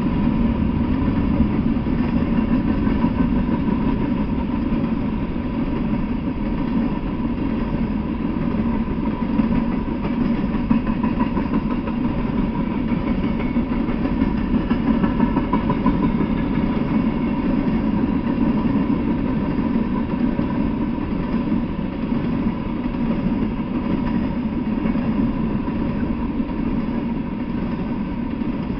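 Open-top hopper cars of a freight train rolling past: a steady low rumble of steel wheels on the rails, heard through a trail camera's microphone.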